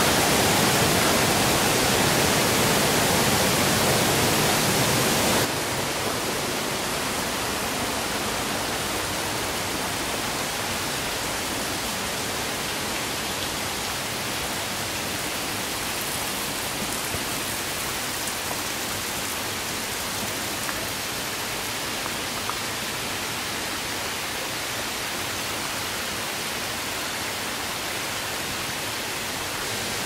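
Steady rush of falling and flowing water from a small waterfall and stream in a wooded gorge. It is louder for about the first five seconds, then drops suddenly to a quieter, even rush.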